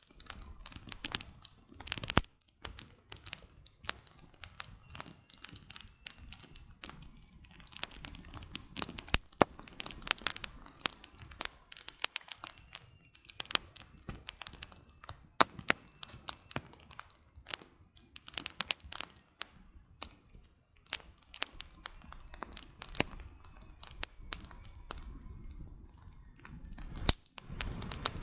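Campfire with firewood burning, crackling and popping irregularly, with many sharp snaps over a soft low rush of flame.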